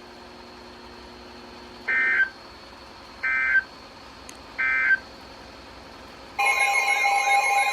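Three short bursts of EAS digital data tones from a weather radio, each under half a second and about 1.3 seconds apart: the end-of-message code that closes an alert. About six seconds in, a loud alarm of several steady tones starts.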